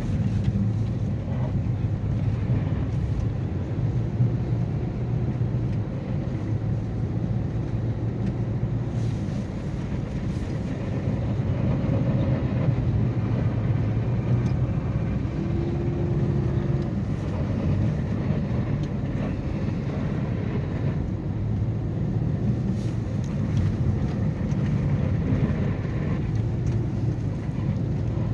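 Steady low road and engine rumble inside a car's cabin on a highway in falling snow, with a brief faint tone about halfway through.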